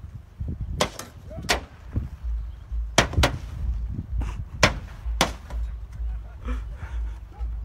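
A wrecked Ford Ka's metal body being struck again and again with long poles: about seven loud, ringing bangs at uneven intervals, with fainter knocks near the end, over a low steady rumble.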